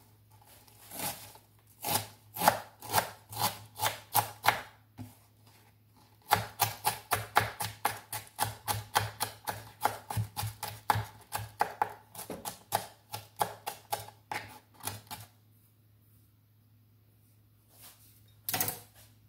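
A knife chopping a red onion on a wooden cutting board in quick, even strokes, about four a second, in two runs with a short pause between them. A single short louder noise comes near the end.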